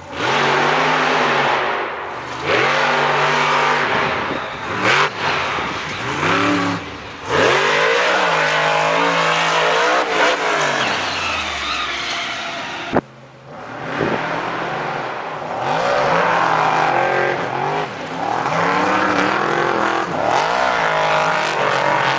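Off-road monster-truck racers' engines revving hard, the pitch climbing and dropping back again and again as they accelerate and come off the throttle. About 13 seconds in there is a sharp click and a brief dip before the engine sound picks up again.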